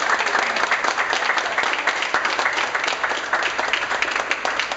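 Small audience applauding: many hand claps close together, with one person clapping right next to the microphone.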